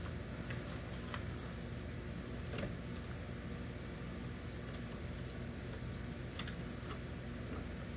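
Scattered light clicks and taps of hand work at the mirror mount inside a pickup truck's door, over a steady low background hum.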